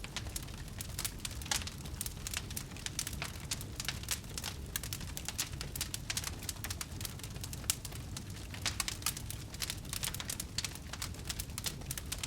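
Campfire crackling, with frequent irregular sharp pops and snaps over a low steady rumble.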